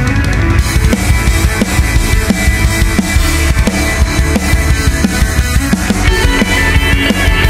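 Loud background music with a steady drum kit beat.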